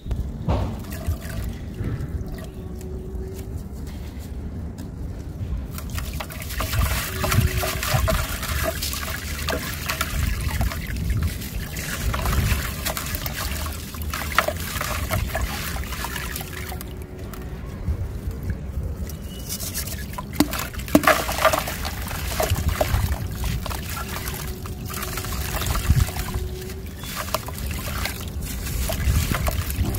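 Gritty soil balls crushed and crumbled by hand over a tub of water: a dense crunching crackle, with crumbs and grains trickling and splashing into the water. It starts quiet for the first few seconds and dips again about two-thirds of the way through.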